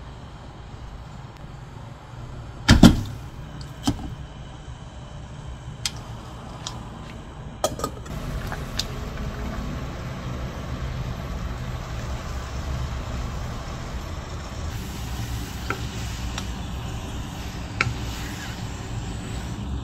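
Clatter of cookware and tableware over a low steady rumble: one loud knock about three seconds in, a few lighter clicks over the next few seconds, then sparse clinks of wooden chopsticks and a spoon against a ceramic soup bowl near the end.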